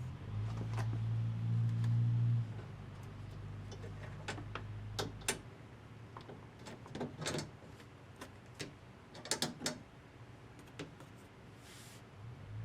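The truck's power window motor hums steadily for a couple of seconds, then dies away. A run of scattered sharp clicks and knocks follows, loudest around the middle and toward the end, like hard plastic trim and door parts being handled.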